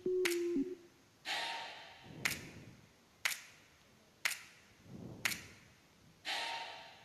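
Sparse background music: a held synth tone at the start, then a sharp clap-like hit about once a second, with swelling whooshes between the hits.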